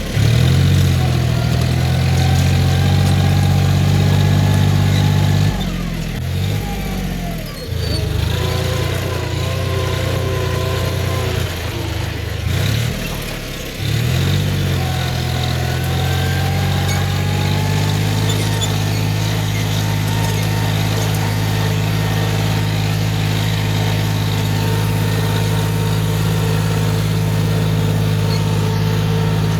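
John Deere 5036D tractor's three-cylinder diesel engine running steadily while working a field with a harrow. About six seconds in the engine note drops and turns quieter; at about fourteen seconds it rises again and then runs steady.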